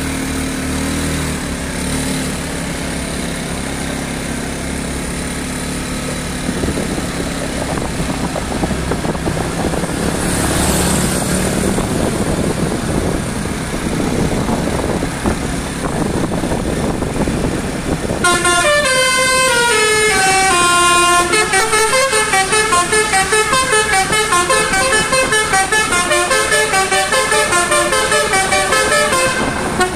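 Street noise with a vehicle engine running, then, about eighteen seconds in, a telolet basuri multi-tone car horn starts playing a stepping, partly descending tune in several tones at once, its notes pulsing rapidly and loudly through the rest.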